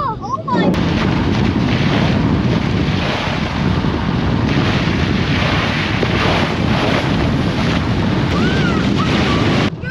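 Wind rushing over an outside-mounted camera's microphone together with tyre hiss and spray from a car driving on a wet road; a steady, loud rush that starts and stops abruptly.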